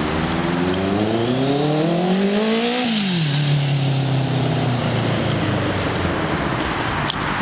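1985 Honda CB650SC Nighthawk's inline-four running through a Supertrapp slip-on exhaust, pulling hard with the pitch rising for about three seconds, then dropping quickly and holding steady at a lower note before fading. A single sharp click near the end.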